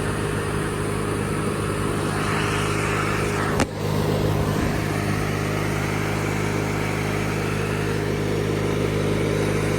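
Engine of a 1997 MTD Yard Machines riding lawnmower running steadily while the mower drives along, with one sharp click about three and a half seconds in. The engine sounds healthy: 'don't sound bad at all'.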